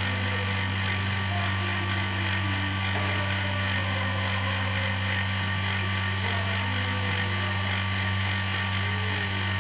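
Vacuum pump running steadily while it holds a vacuum drying oven under vacuum: a constant low motor hum with an even hiss over it.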